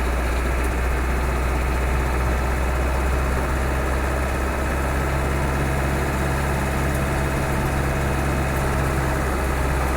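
Land Rover Defender 110's engine and drivetrain running steadily, heard from inside the cab as a constant low drone. A steady hum joins about halfway through and fades just before the end.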